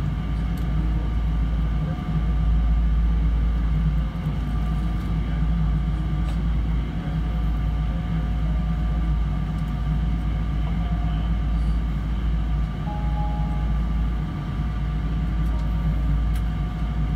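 Cabin noise of a Boeing 777-300 taxiing after landing: a steady low rumble with a thin, even engine whine from the idling engines, heard inside the cabin.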